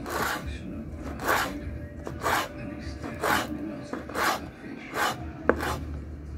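Kitchen knife slicing hot chili peppers on a wooden cutting board, one cut about every second, with a sharper click of the blade near the end.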